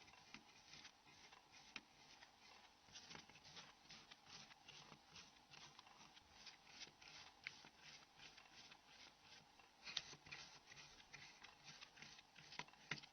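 Faint, irregular small clicks and ticks of a small Torx screwdriver turning tiny screws out of a mobile phone's frame, with a slightly louder click about ten seconds in.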